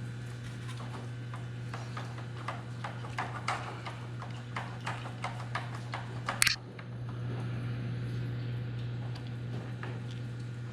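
Small plastic clicks and taps as the shift servo linkage and shift rod of an RC truck are handled, irregular and coming faster for a few seconds, ending in one sharp snap about six and a half seconds in. A steady low hum runs underneath.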